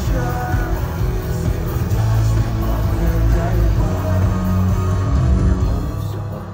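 Live rock music played loud over a concert sound system: electric guitar over heavy bass. The bass thins out near the end.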